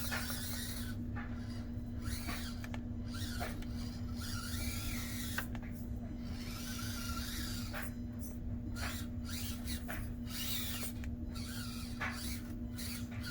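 Small brushed electric motor and gearbox of an Axial SCX24 Deadbolt 1/24-scale RC crawler whining steadily as it crawls over the course, with a changing higher gear whine and scraping as it works across the terrain.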